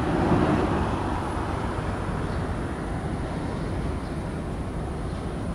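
Steady outdoor vehicle rumble, louder for about a second at the start.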